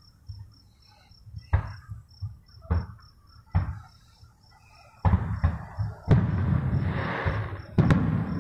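Aerial fireworks going off: three sharp bangs about a second apart, then from about five seconds in a louder, continuous stretch of bursts with one more sharp report near the end. Crickets chirp steadily throughout.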